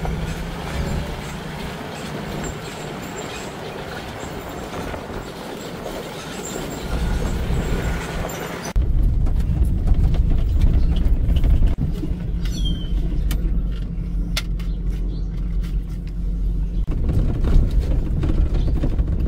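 A vehicle on the move: steady engine and road rumble with some creaking. About nine seconds in the sound changes abruptly to a louder, deeper rumble with occasional clicks.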